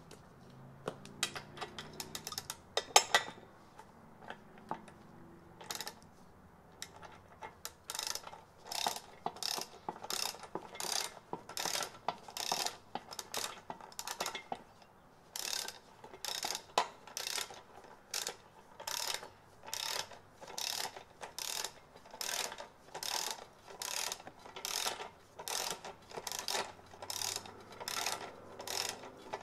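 Ratchet wrench turning the threaded rod of a bushing press on a Mercedes W201 front lower control arm: the pawl clicks in a short burst on each swing, about once a second, after a few scattered clicks at the start.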